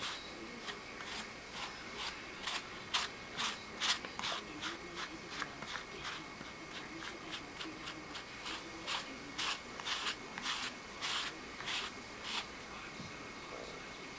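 Grooming brush drawn through a cat's fur, a quick run of short scratchy strokes, two or three a second, that stops near the end.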